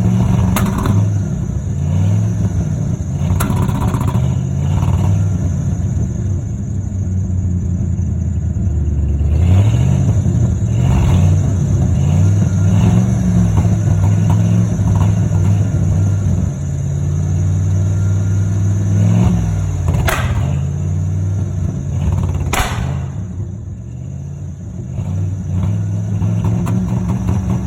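1995 Ford F-150 pickup engine running, its speed rising and falling, on a bad alternator. Two sharp clicks come about 20 and 22 seconds in.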